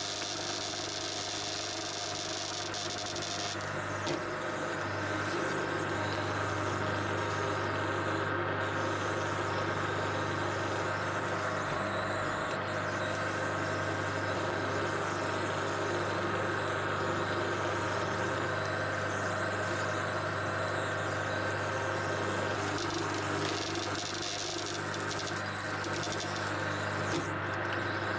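Twin-shaft shredder running empty, its motor and cutter shafts giving a steady mechanical hum with a low drone, a little louder from about four seconds in.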